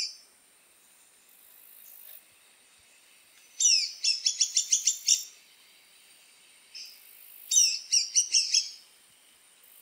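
Woodpecker calling: quick runs of sharp, high chirps that fall in pitch, one run of about eight a little past the middle and another near the end, with a lone chirp between them.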